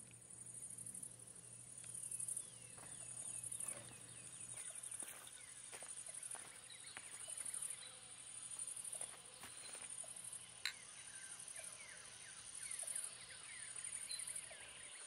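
Quiet lakeside evening ambience: a steady high-pitched insect drone that swells and fades every second or two, with many short falling bird chirps throughout and a single sharp click about two-thirds of the way in.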